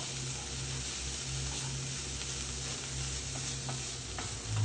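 Cauliflower rice and carrots frying in a stainless steel pan, a steady sizzle while being stirred with a wooden spatula, with a few light scrapes of the spatula against the pan in the second half.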